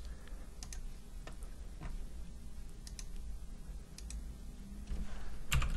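Scattered computer mouse clicks, a few seconds apart, with a louder click or keystroke just before the end, over a faint low hum.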